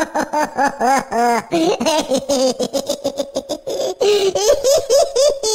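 Stage actors' performed laughter: a long run of rhythmic 'ha-ha' pulses, about five a second, turning into a wavering, held laugh in the middle and pulsing again near the end.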